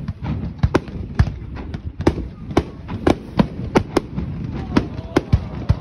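Fireworks display going off in a rapid, irregular run of sharp bangs, about two to three a second, as aerial shells burst and more effects launch.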